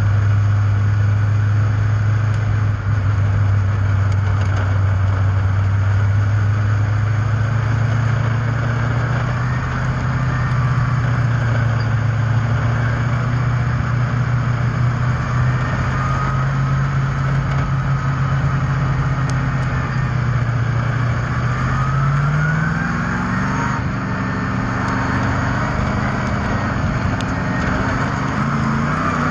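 Speedway race car engine running hard at steady revs, its pitch creeping slowly upward, then rising sharply about three quarters of the way through as it revs higher.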